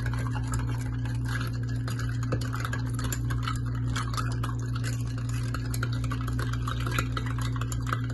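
Metal spoon stirring milk with sugar in a glass mug, ticking against the glass in quick, irregular clinks, over a steady low hum.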